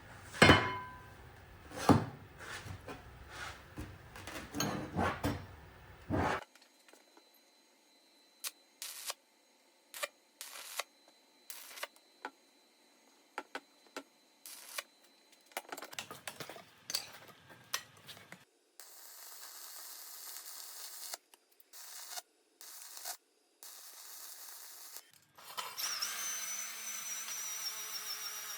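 Hand work with tools and metal hardware: a run of sharp knocks and clinks, sparser clicks after a sudden cut, then stretches of steady hissing noise, the last with a thin high whistle.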